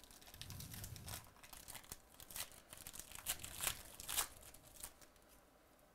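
A sealed foil trading-card pack being torn open and its wrapper crinkled by hand: a quick run of crackles and rips that dies away near the end.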